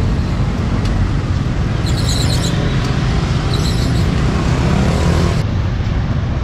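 Steady street traffic noise: a continuous low rumble of passing vehicles, with two brief high-pitched sounds about two and three and a half seconds in.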